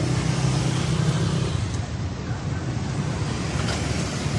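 Street traffic: motor scooters and cars running past, with a steady low engine hum in the first second or two.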